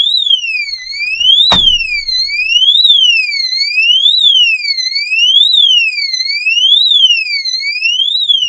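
Oxford Screamer motion alarm going off after the motorhome's armed swivel seat is turned: a loud siren that sweeps up and down in pitch, about one rise and fall every second and a half. A single knock sounds about a second and a half in.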